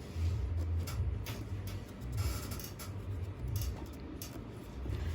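Scattered light clicks and taps from a gaming keyboard being handled and wiped clean, over an uneven low rumble.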